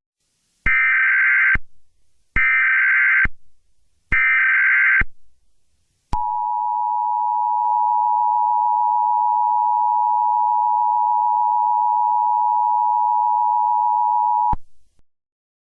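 Emergency Alert System alert tones: three short bursts of the SAME data header, each a harsh buzzing screech just under a second long, then the two-tone attention signal, a steady dual tone held for about eight seconds before it cuts off.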